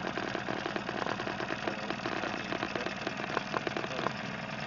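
A small outboard motor running steadily, driving a dinghy along, with a few faint ticks near the end.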